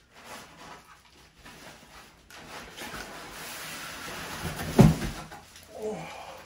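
Plastic wrapping rustling and cardboard rubbing as a heavy electric scooter is hauled up out of its shipping box, with one loud knock about five seconds in. A short grunt falling in pitch follows near the end.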